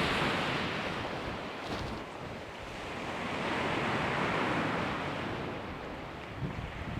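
Sea waves breaking and washing over a shingle beach, swelling and easing in slow surges, with wind buffeting the microphone.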